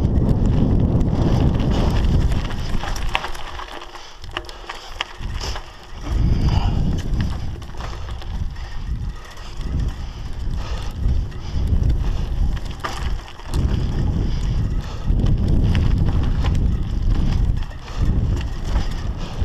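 Wind buffeting a GoPro's microphone as a Scott Scale 960 hardtail mountain bike is ridden along dirt forest singletrack, mixed with tyre noise and clicks and rattles from the bike over bumps. The rumble eases off briefly about four seconds in and again near the end.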